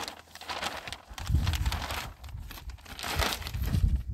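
Large clear plastic sheet crinkling and rustling as it is pulled and stretched over a tent, in irregular bursts, with a low rumble underneath from about a second in.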